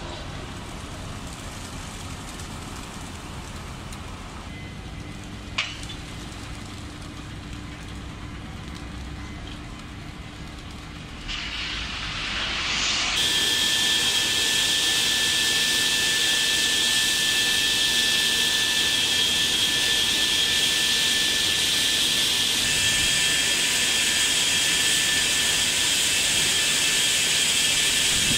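Ship-unloading machinery running with a steady jet-like hiss and a high, steady whine, swelling to much louder about twelve seconds in. One sharp click near six seconds.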